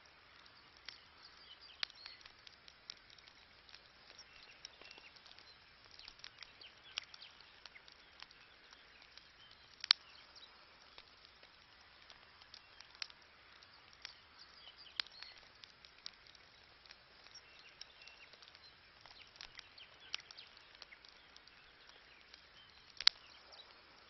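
Wood campfire of burning branches crackling: irregular small snaps and pops over a faint hiss, with two sharp, louder pops about ten seconds in and near the end.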